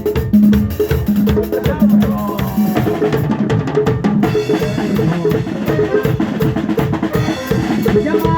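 A cumbia band playing: a drum kit with bass drum, snare and rimshots drives a steady beat under a repeating bass line and melody. A bright cymbal wash drops away about three seconds in.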